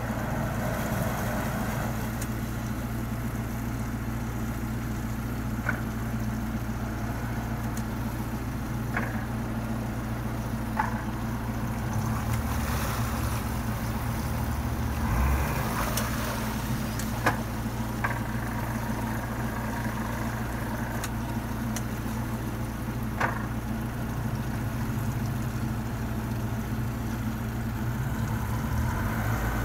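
Twin outboard engines of an RNLI inshore lifeboat idling as it manoeuvres slowly alongside a pontoon, a steady low hum that shifts a little about halfway through. A few sharp knocks stand out now and then.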